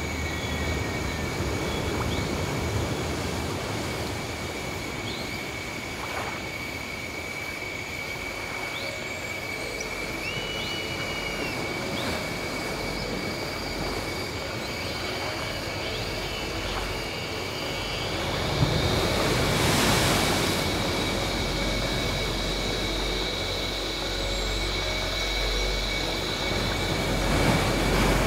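Ambient sea soundscape: a steady wash of waves with a low rumble, swelling about twenty seconds in, under a steady high tone and scattered faint short chirps.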